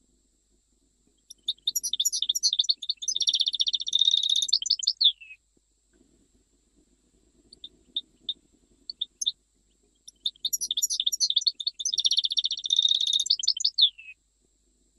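European goldfinch of the Algerian Jijel type singing: two long phrases of rapid twittering and trills, each about four seconds, with a few scattered single notes between them.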